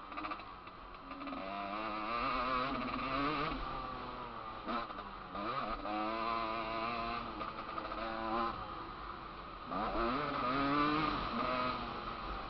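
Motocross dirt bike engine heard from on board, revving up and down as it is ridden around the track. The pitch climbs, dips sharply about five and a half seconds in, climbs again, and rises once more near ten seconds.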